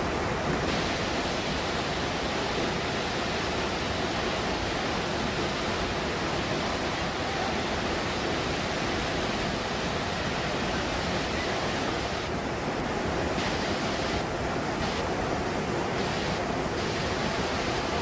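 Large waterfall (Athirappilly Falls) rushing in a steady, even roar of falling water.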